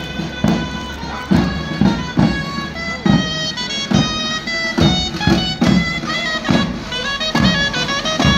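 Traditional folk music: a shrill wind instrument playing a melody over repeated drum beats.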